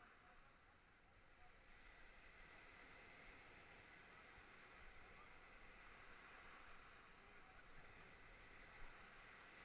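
Near silence: faint, steady wash of small surf running up the sand, with no distinct strokes or impacts.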